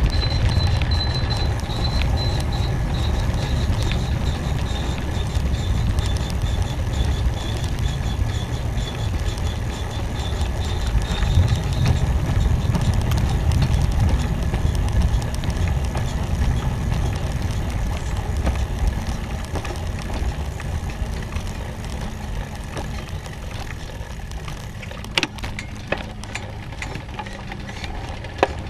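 Wind buffeting the microphone of a camera moving along a road, a steady low rumble. A faint high whine fades out about halfway, and two sharp clicks come near the end.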